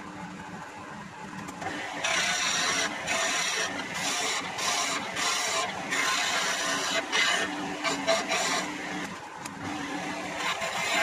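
Wood lathe running with a low hum, then from about two seconds in a skew chisel cutting a spinning wooden pen blank: a loud hissing scrape that breaks off and starts again as the tool is lifted and re-presented.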